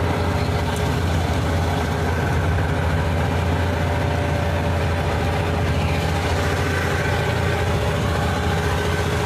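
Fishing boat's engine running steadily under way, a constant low hum with an even wash of noise over it.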